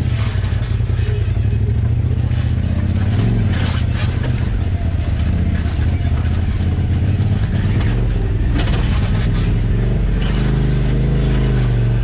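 Side-by-side UTV engine running steadily on a rough trail, its revs rising and falling with the throttle and climbing about ten seconds in, with a few knocks from the machine over the terrain.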